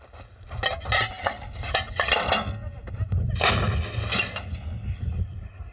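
Towed artillery gun (howitzer) firing: several loud, sudden blasts over a few seconds, the biggest about three and a half seconds in, over a low rumble.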